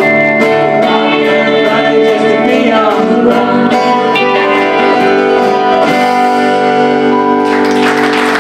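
Live band with strummed acoustic guitar, bass and singing finishing a song; the last chord rings out, and audience applause starts near the end.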